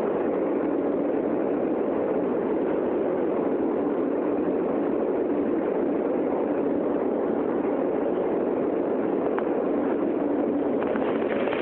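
New York City subway car running between stations, heard from inside the car: a steady, loud rumble.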